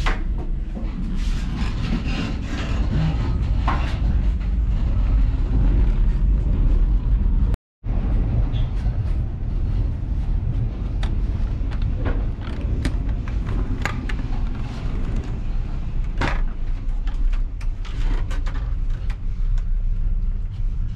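Steady low rumble of a moving passenger train heard from inside the carriage, with scattered clicks and knocks. The sound cuts out for a moment about a third of the way in.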